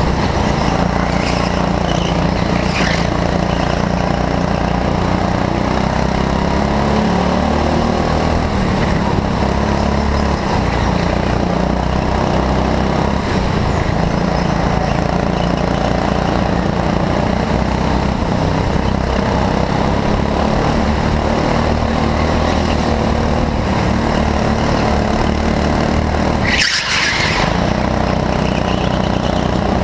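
A go-kart engine running hard, heard from on board the kart, its note dipping and climbing as it goes through the corners. About 27 s in, a brief high-pitched hiss cuts in for about a second as the engine drops back.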